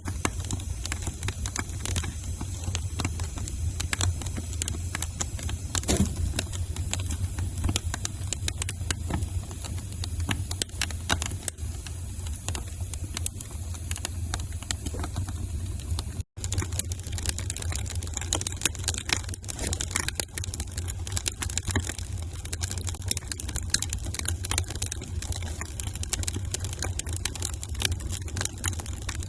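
Wood fire crackling in a fireplace: many irregular sharp pops and snaps over a steady low rumble. There is a momentary dropout a little past halfway.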